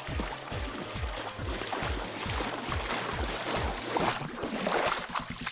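Cartoon water sound effects: continuous sloshing and splashing with a steady run of low thuds, about two or three a second.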